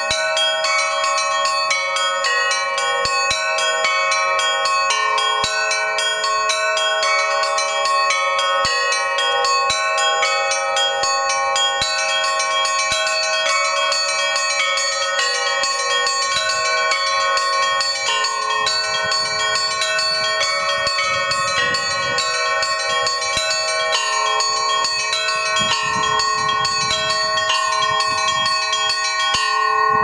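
Russian-style bell ringing: one ringer pulling clapper ropes to strike a set of hanging bronze bells of different sizes on a frame, a rapid, continuous peal of many overlapping bell tones.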